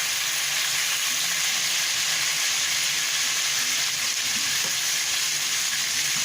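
Sliced garlic sizzling in hot olive oil in a frying pan: a steady frying hiss.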